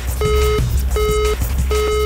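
Electronic beeps, three in a row, each just under half a second long and repeating about every three-quarters of a second, over a music track with a steady low bass.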